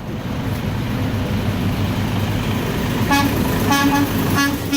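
Road traffic rumbling, then from about three seconds in a truck horn sounds three short honks.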